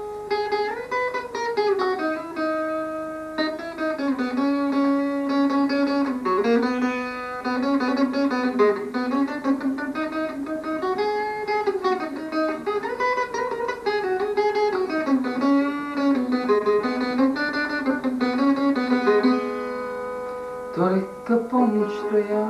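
Acoustic guitar played as an instrumental interlude between verses of a slow song, with a wordless melody line that glides and holds notes over the picking.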